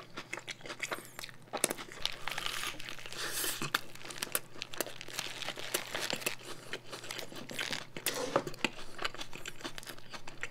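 Paper burger wrapper crinkling in the hands, together with close-miked chewing of a mouthful of burger: a steady run of small crackles and mouth clicks.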